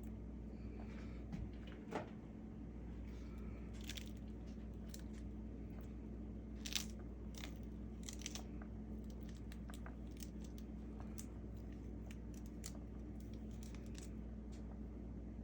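Scattered small crunches, clicks and tearing sounds from hands breaking open a pomegranate and working the seeds out, over a steady low hum. The loudest crack comes about seven seconds in.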